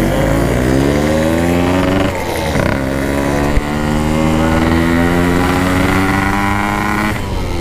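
Yamaha RX-King's single-cylinder two-stroke engine, through an aftermarket PK 3 exhaust, pulling under acceleration. The pitch rises, drops at a gear change about two seconds in, climbs steadily again, then dips near the end.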